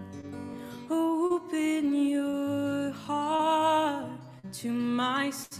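A woman singing long held notes with vibrato over a strummed acoustic guitar; the voice comes in about a second in, after a moment of guitar alone.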